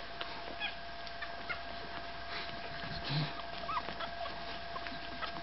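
Five-day-old Staffordshire Bull Terrier puppies giving short, high squeaks and whimpers, scattered every second or so.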